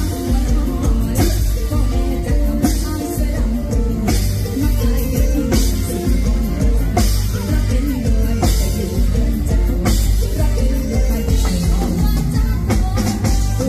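Live band playing an upbeat Thai Isan lam–luk thung song, with a woman singing into a handheld microphone over heavy bass and a drum kit, loud through the stage PA.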